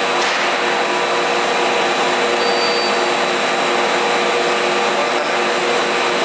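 Confectionery-production machinery running steadily on a twin-screw cooking extruder line: a continuous loud machine noise with a few steady hums and whines through it.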